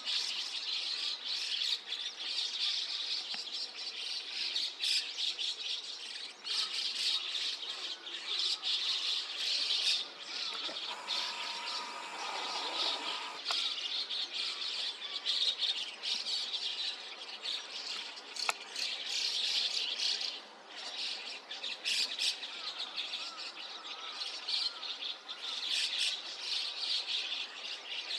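A large flock of starlings, white-cheeked and chestnut-cheeked starlings together, giving dense, continuous chattering and squawking calls.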